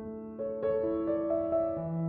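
Soft background piano music: a slow phrase of held notes entering one after another.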